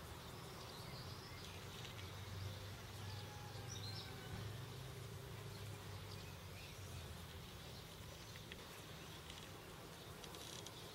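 Faint outdoor ambience: a low, wavering insect buzz that comes and goes, with scattered faint high chirps.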